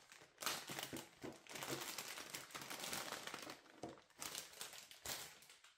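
Plastic packaging pouch crinkling and rustling in irregular bursts as it is opened and handled by hand.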